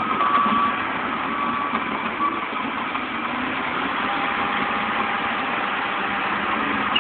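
Heavy diesel engines of a wheel loader and a dump truck running steadily. A backup alarm beeps a few more times in the first two seconds.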